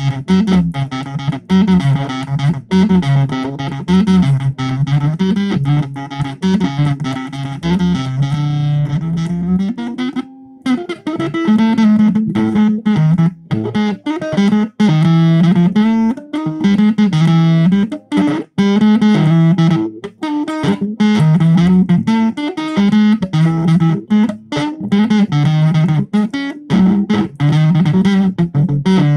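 Electric guitar played through a Zoom 506 bass distortion pedal, playing a repeating riff. It breaks off briefly about ten seconds in, then comes back with a different riff.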